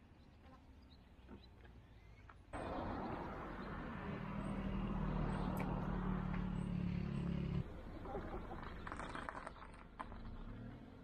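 A vehicle engine running with a steady low hum, starting suddenly a few seconds in and cutting off abruptly about halfway through; a few light clicks follow.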